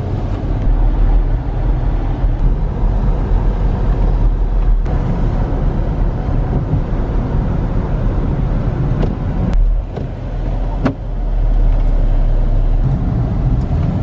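Steady road and engine rumble heard inside a moving car's cabin, with a couple of brief clicks about two-thirds of the way through.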